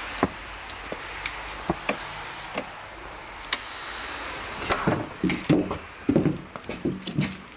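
Footsteps on a paved path, a sharp step every half second or so, then from about five seconds a run of louder knocks and rattles as a wooden front door with a glass pane is handled and opened.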